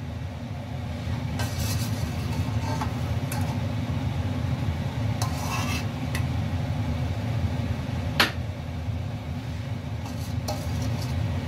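Cherry jam boiling hard in a stainless steel pot under a steady low rumble, while a metal spoon skims off the foam, scraping and clinking against the pot now and then, with one sharp clink about eight seconds in.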